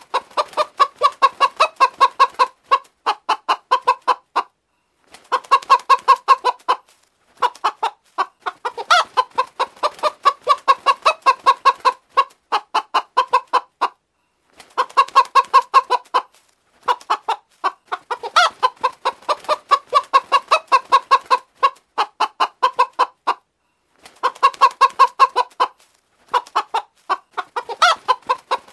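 Hen clucking: quick runs of short clucks, about four or five a second, broken every few seconds by brief pauses.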